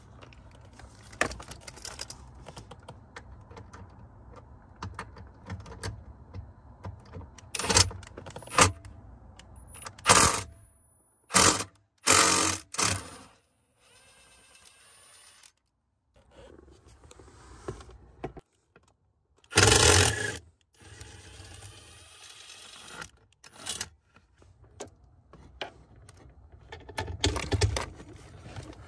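Cordless drill/driver on a long extension and socket, loosening the steering column's mounting bolts. It runs in several short bursts, with metal tools clinking and scraping in between.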